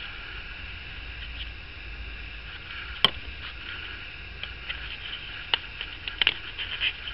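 Quiet craft-table handling noise: hands pressing EVA foam pieces together and handling a plastic glue bottle, over a steady faint hiss. One sharp click comes about three seconds in, and a few softer taps come near the end.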